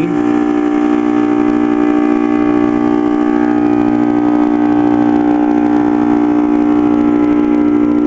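Outdoor condensing unit of a 2010 Bryant Evolution two-stage heat pump, its Copeland scroll compressor running with a loud, steady hum of several tones during a defrost cycle.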